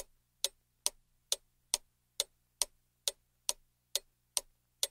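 Clock ticking evenly, a little over two sharp ticks a second, over a faint steady hum: a ticking timer marking thinking time for a classroom exercise.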